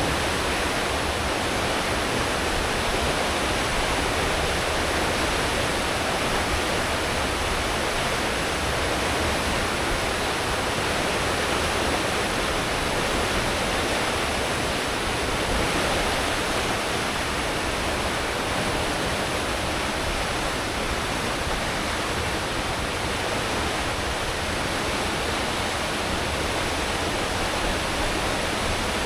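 A cruise ship's wake churning behind the stern at full speed: a steady rushing of water, with a low rumble from the engines and propellers underneath.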